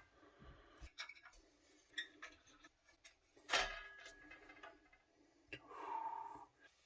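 Faint scattered clicks and taps from handling a small ITX PC case and its packaging, with one sharper click about three and a half seconds in and a brief squeak of rubbing about six seconds in.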